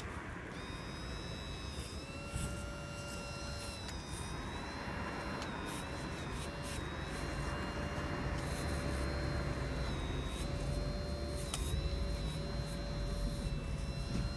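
Electric hydraulic pump of a radio-controlled hydraulic excavator whining in repeated spells of one to three seconds, cutting in and out as the boom and bucket are worked, with a few sharp clicks. A low rumble grows underneath in the second half.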